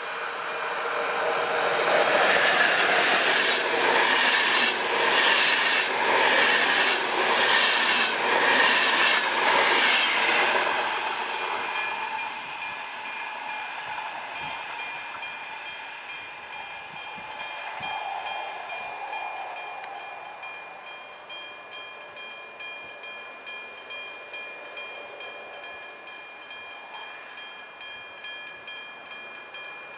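VR InterCity2 double-deck passenger train passing at speed, its wheels clattering in a regular rhythm. After about eleven seconds the clatter fades, leaving a steady high whine with regular ticks as the next train approaches.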